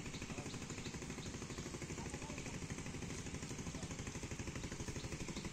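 A small engine running steadily with a fast, even pulse, with faint short high chirps scattered over it.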